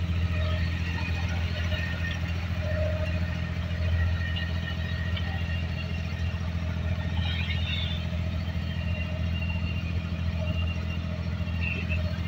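A wooden abra water taxi's inboard diesel engine running under way, a steady deep drone that holds even throughout.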